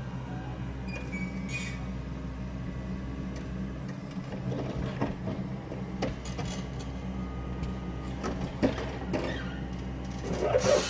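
Yanmar mini excavator's diesel engine running steadily under hydraulic load while its grapple and bucket set a boulder down on a pile of rough fieldstone, with scattered knocks and clanks of rock and steel, the loudest near the end.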